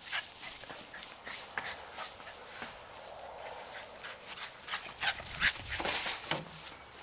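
Boston terrier playing with a floppy Frisbee, giving small whimpers and yips among a busy run of quick scuffs and clicks, busiest about two-thirds of the way through.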